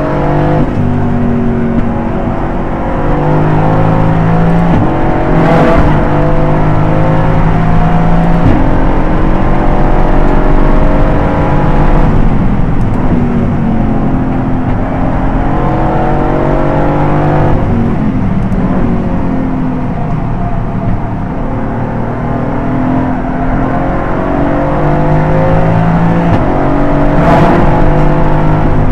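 Aston Martin Vantage GT4's V8 under race load, its note repeatedly climbing in pitch and then dropping sharply at gear changes, with a few sharp cracks on the shifts.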